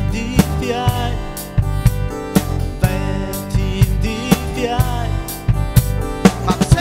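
Live band playing an instrumental passage of a song, with drum kit, guitars and keyboard, and drum hits through a wavering melody line.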